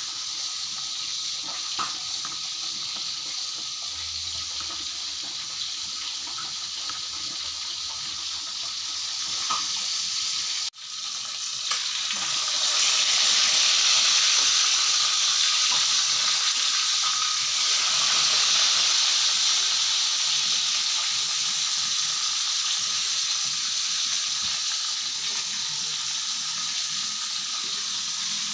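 Fish sizzling as it fries in hot oil in a wok, a steady hiss. A brief dropout comes about eleven seconds in, after which the sizzle is louder.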